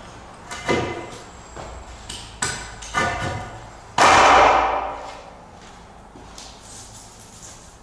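Hard knocks and clatter of wood and metal as adjustable wooden floor joists and their washers go onto threaded anchor studs. There are several sharp knocks, and the loudest about four seconds in rings out for about a second.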